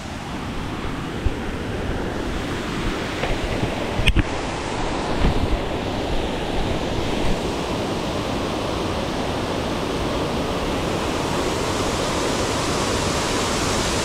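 Steady rush of falling water from a waterfall, growing slightly louder. There are a few sharp knocks in the first half, the strongest about four seconds in.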